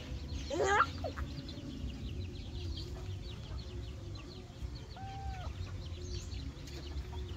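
Chickens clucking, with one loud wavering call just under a second in and a shorter call about five seconds in.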